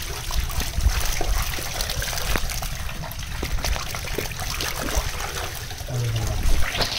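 Shallow water splashing and trickling as a dense crowd of snakehead fingerlings thrash in a concrete tank, with a hand swishing among them; many small, quick splashes.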